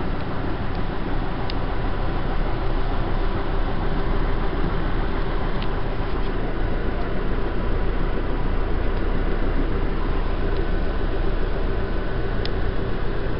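Steady rumble and hiss of a moving passenger vehicle, with a faint steady hum and a few faint clicks.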